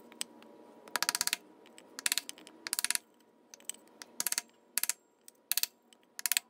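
A wooden block being tapped against a new crankshaft front oil seal to drive the press-fit seal into the engine's timing cover. There are about seven short bursts of rapid sharp clicking taps, roughly one a second, as the seal is worked in around its edge.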